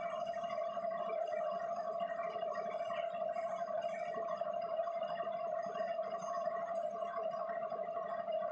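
Large engine lathe running with a steady high-pitched whine, turning a big metal ring, with a few faint light ticks and rattles about halfway through.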